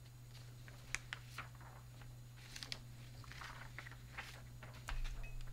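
Faint scattered clicks and taps, like small handling noises at a desk, over a steady low electrical hum, with a duller low bump near the end.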